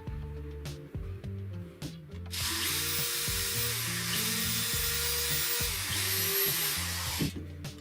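A handheld power tool running steadily for about five seconds, starting a couple of seconds in and cutting off near the end, over background music.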